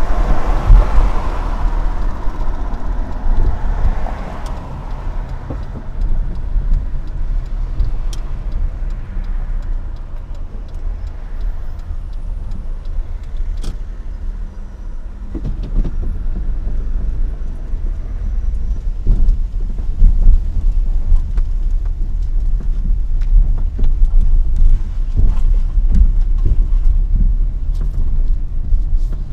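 A car being driven, heard from inside the cabin: a steady low rumble of engine and tyres on the road. A louder rush of noise comes in the first few seconds and dies away. Scattered light knocks and clicks follow.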